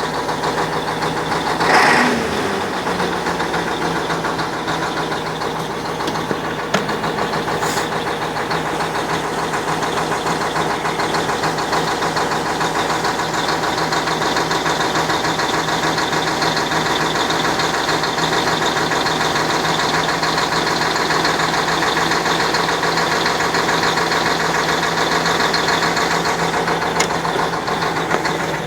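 YaMZ-6581.10 truck diesel engine idling steadily, with a knock whose cause the owner cannot place. About two seconds in, a brief louder sound falls away in pitch.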